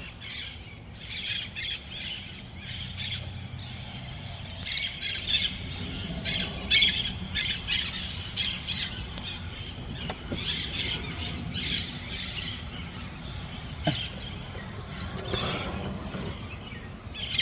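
A flock of small green parrots calling in harsh, repeated squawks, many short calls overlapping one another.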